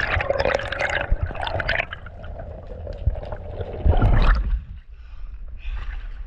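Water rushing and gurgling around an underwater camera as a freediver ascends. About four seconds in there is a loud splash as the camera breaks the surface, and quieter water sounds follow at the surface.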